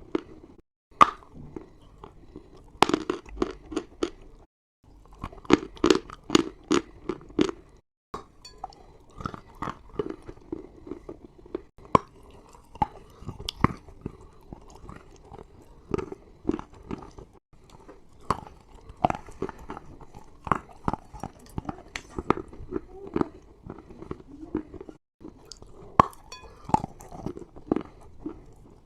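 Close-up chewing of chalk, some of it dry and some wetted into a paste. It gives sharp crunches in quick runs of several a second, broken by short pauses between bites.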